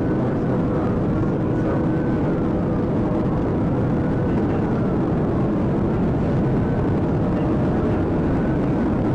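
Inside a police patrol car driving at over 100 mph: steady, heavy road, wind and engine noise, with a siren wailing faintly, slowly rising and falling, beneath it.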